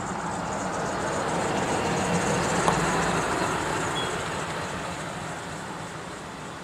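Traffic passing on the road: a rushing noise swells to its loudest about two to three seconds in and then fades away, with a brief click at the peak.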